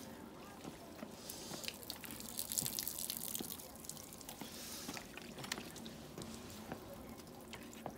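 Water poured from a bottle onto an iced-over car, splashing and trickling as it thaws the ice. It is loudest about two to three and a half seconds in, with smaller splashes and drips after.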